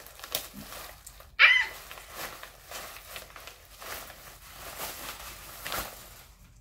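Thin plastic packaging crinkling and rustling in bursts as packing cubes are pulled out of their bag. About a second and a half in, a short pitched vocal sound that rises and falls is the loudest thing.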